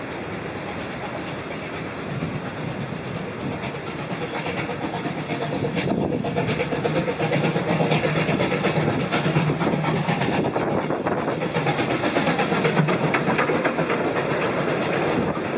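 South Australian Railways Rx-class steam locomotive 207 and its carriages running past close by, growing louder over the first several seconds, with a steady rumble and wheels clicking over the rail joints.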